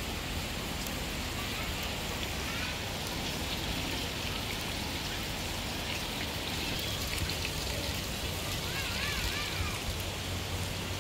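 Steady rushing hiss of water, even and unbroken.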